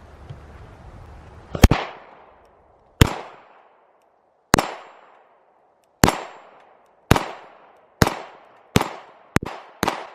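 Pistol fired nine times at a target, each shot a sharp crack with a short echo trailing off. The shots come about a second and a half apart at first, then faster, several in quick succession near the end.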